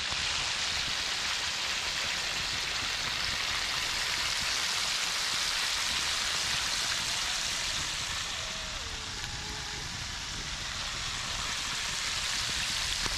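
A whole chicken deep-frying in a large pot of hot oil, the oil sizzling and bubbling in a steady hiss.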